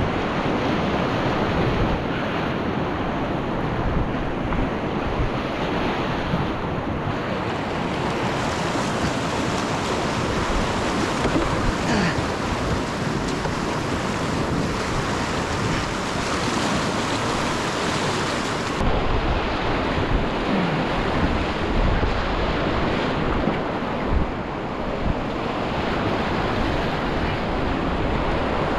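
Rushing whitewater of a muddy river running high after heavy rain, heard close up from a packraft in the rapids, with low buffeting on the camera microphone.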